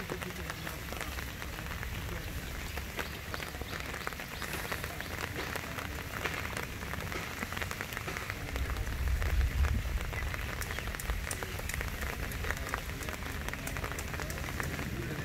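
Rain falling on a pond's surface: a steady patter of many small drop ticks on the water. A brief low rumble about nine seconds in is the loudest moment.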